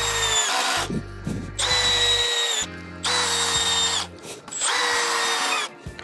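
Cordless drill driving 2.5-inch exterior screws into a pine 2x4 frame, running in short bursts of about a second, its whine dropping slightly during each run as the screw countersinks.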